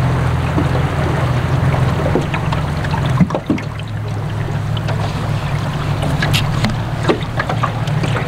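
Boat motor running at low speed with a steady low hum. About three seconds in, a sharp knock comes and the hum settles to a lower pitch; a few light knocks follow.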